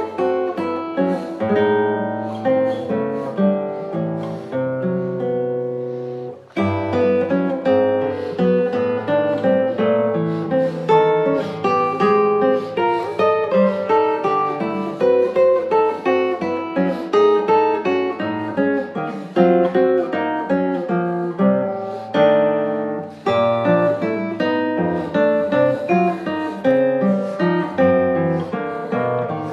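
Solo classical guitar playing dissonant contemporary music: notes plucked in quick succession, with a brief break about six seconds in before the playing resumes.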